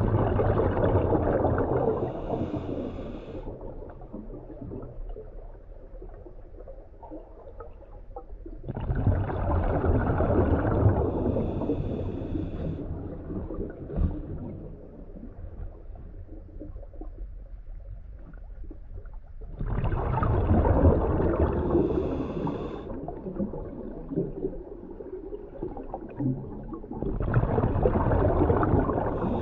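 Scuba diver's exhaled breath bubbling out of the regulator, heard underwater: four long exhalations about every nine seconds, each lasting about three seconds, with quieter stretches between.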